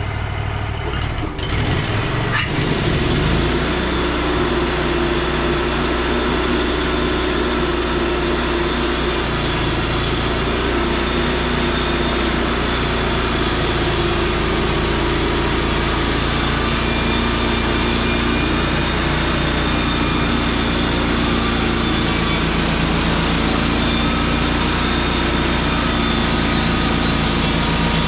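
Wood-Mizer LT35 band sawmill's engine coming up from idle about two seconds in, then running steadily under load as the band blade cuts through a pine log.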